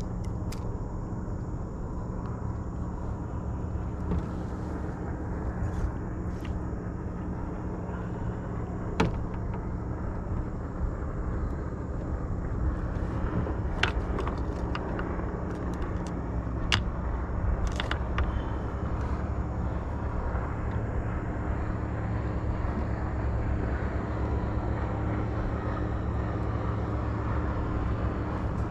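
A steady, low engine-like drone runs throughout, with a few sharp clicks or knocks about a third of the way in and again around the middle.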